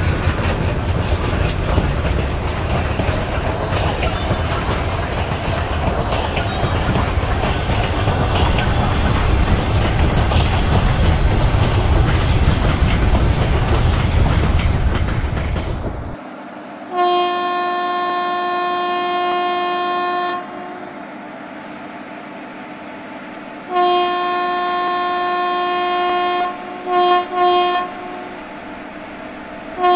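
Train running past, a steady rumble with the wheels clattering on the rails, which cuts off suddenly about sixteen seconds in. Then a locomotive horn sounds: a long blast of about three and a half seconds, a second long blast a few seconds later, two short toots, and a new blast starting right at the end.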